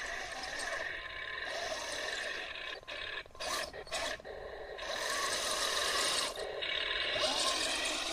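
Heng Long 1/16 M41 Walker Bulldog RC tank with metal tracks driving over dry grass and leaves: a steady grinding, rasping drive and track noise. It breaks off into a few short stop-start spurts a little past the middle, then runs on louder.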